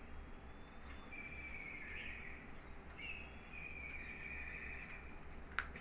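Outdoor ambience of birdsong and insect chirping: two warbling trill-like calls, one after the other, over faint high chirps, with a single sharp click near the end.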